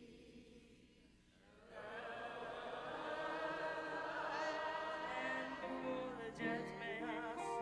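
Voices singing a gospel hymn in harmony, coming in about two seconds in after a short lull.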